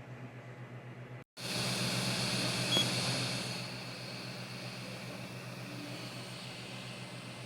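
Creality CR-M4 3D printer running, its fans giving a steady hum with a pulsing low note. The sound cuts out for an instant about a second in, then comes back louder with hiss and a high whine that eases off after a couple of seconds.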